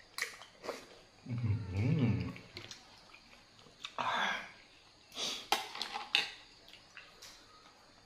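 A man eating blue swimming crab, sucking and slurping the meat from the shell, with short smacks and chewing clicks. A low hummed "mmm" of relish comes about a second and a half in.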